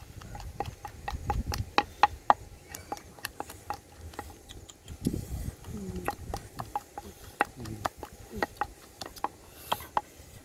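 Wooden pestle pounding chili paste in an earthenware mortar: rapid knocks, about four a second, each with a short ring, slowing a little in the second half.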